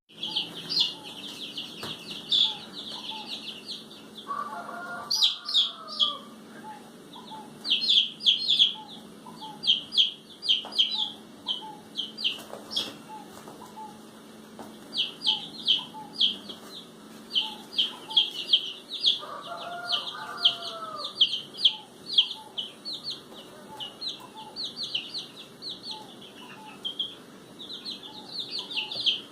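A group of ducks calling noisily: continual rapid trains of short, high-pitched peeps. Twice, about five seconds in and again near twenty seconds, a longer, lower call rises and falls.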